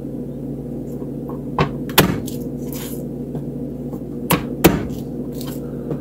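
A head of garlic being pressed and broken into cloves by hand on a plastic cutting board: a few sharp knocks on the board in two close pairs, about two seconds apart, over a steady low hum.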